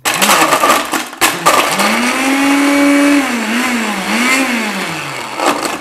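Koblenz countertop blender crushing ice cubes. It runs in a short pulse, stops for a moment about a second in, then runs again, its motor pitch rising and dipping repeatedly as it works through the ice, and stops shortly before the end.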